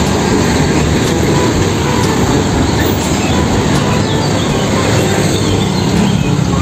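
Steady, loud rumble of a light tow truck's diesel engine and tyres on the road as it tows a wrecked truck cab.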